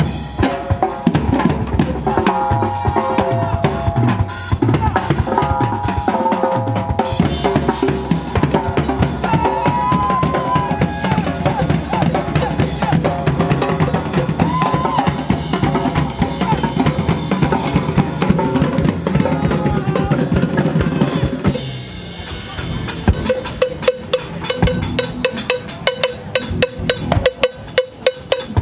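Percussion ensemble playing together: slung bass drums beaten with sticks, hand drums and a drum kit in a dense, driving groove. About twenty-two seconds in the full groove drops away, leaving a cowbell struck in an even pattern over lighter drumming.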